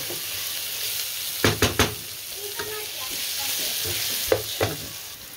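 Onions with ground ginger, garlic and green chillies sizzling in oil in a non-stick pot, stirred with a wooden spatula that knocks sharply against the pot a few times.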